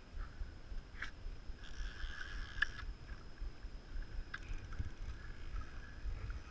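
Shallow water sloshing around a wading angler's legs, with a steady low wind rumble on the microphone. About two seconds in, a short rustle of a sleeve and fly line being handled close to the mic, with a few light clicks.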